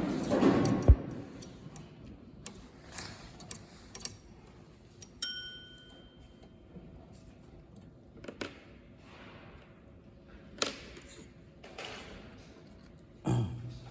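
Scattered light clicks, taps and knocks of hard objects being handled. The loudest is a thump just under a second in, and a short ringing ping comes about five seconds in.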